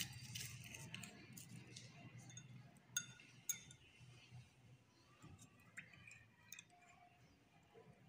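Steel spoon stirring salt into a glass of water, clinking faintly against the glass, with two sharper clinks about three seconds in.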